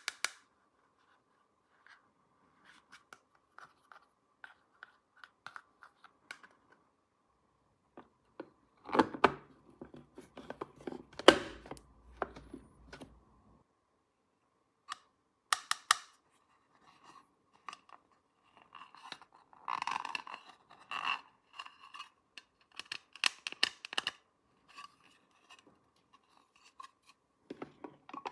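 Small plastic toy pieces and packaging being handled: scattered light clicks and taps, then louder bursts of scraping and rustling, the loudest from about nine to twelve seconds in and again around twenty seconds in.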